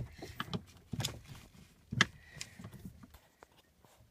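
A few sharp knocks and clicks, the strongest about a second apart, then quieter near the end.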